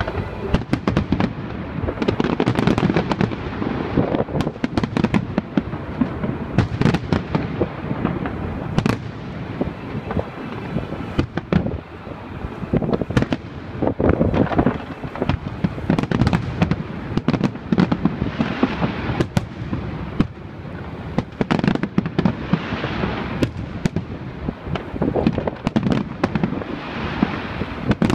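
Fireworks display: aerial shells bursting in a dense, continuous barrage of overlapping sharp bangs.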